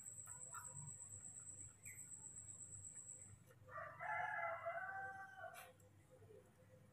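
A rooster crowing once, a single call of nearly two seconds starting about four seconds in, over a faint steady high whine that stops about halfway through.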